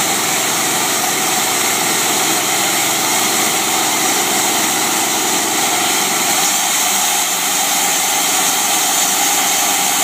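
Small gasoline engine of a homemade bandsaw mill running steadily, driving the band saw blade.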